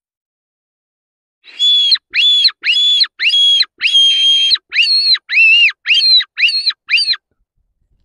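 Electronic predator caller playing a rabbit distress call, a run of about ten shrill squeals in quick succession starting about a second and a half in. The later squeals rise and fall in pitch. The call imitates prey caught in a trap, to lure a wolf in.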